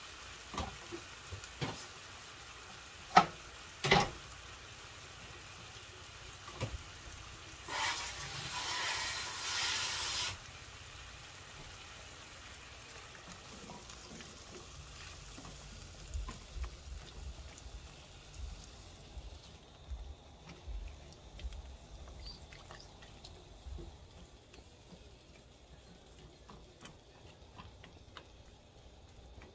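Pork and vegetables frying softly in a nonstick frying pan while a silicone spatula stirs and scrapes through them. There are two sharp knocks about three and four seconds in, then a louder hiss for about two and a half seconds.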